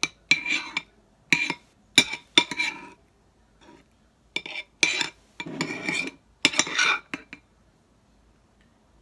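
A spoon clinking and scraping against a small bowl as baby rice cereal is stirred with water: a run of sharp clinks and short scrapes that stops about seven seconds in.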